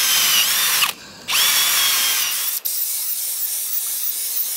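Cordless drill boring holes into a hardwood log: two bursts of the motor whining up to speed and winding down. From about halfway in, the drilling is sped up five times and becomes a continuous, high, fast chatter.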